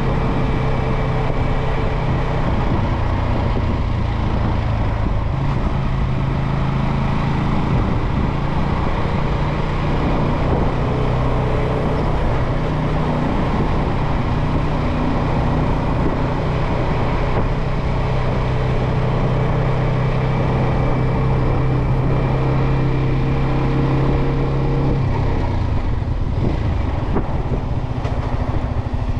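Yamaha XSR125's single-cylinder four-stroke engine running at a steady cruise, with wind and road noise around it. Near the end the engine note falls away.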